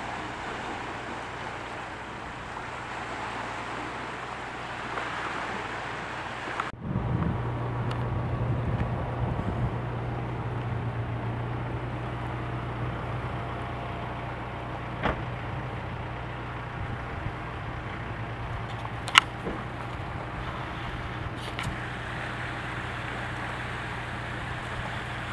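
A steady rushing outdoor noise, then after a sudden break about a quarter of the way in, a steady low engine hum under it, with a few sharp clicks later on.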